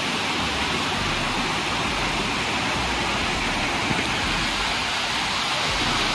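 Waterfall water cascading over rock terraces close by: a steady, unbroken rush of falling and splashing water.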